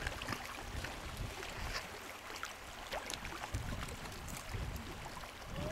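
Wind buffeting the microphone in uneven low gusts, over lapping water, with a few small scattered clicks.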